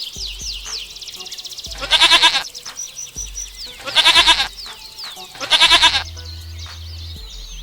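A goat bleating three times, each a loud quavering call of about half a second, roughly two seconds apart, over steady bird chirping.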